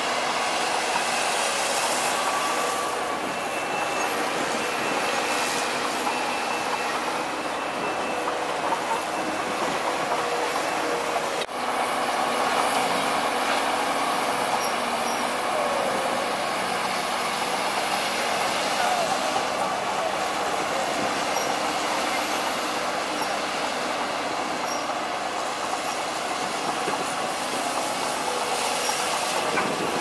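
Komatsu crawler bulldozer and hydraulic excavators working: diesel engines running steadily under the clank and short squeaks of steel crawler tracks.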